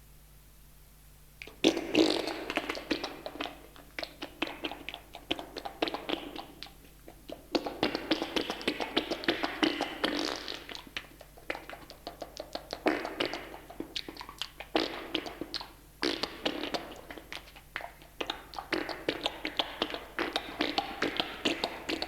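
Rude novelty sound effect: wet, spluttering crackles made of rapid clicks, coming in long bursts with short breaks. It starts suddenly about a second and a half in, out of tape hiss.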